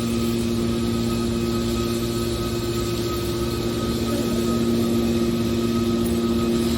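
Hydraulic aluminum-can baler running with a steady, even machine hum from its motor and pump.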